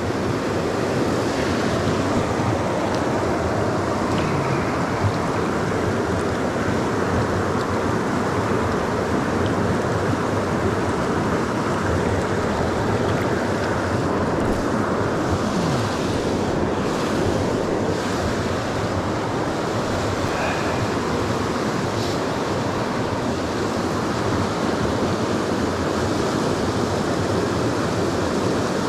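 Whitewater rapids of a small river rushing steadily over a stony bed.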